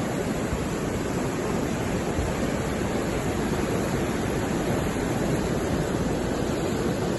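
Floodwater rushing along a swollen river: a steady, unbroken rushing noise.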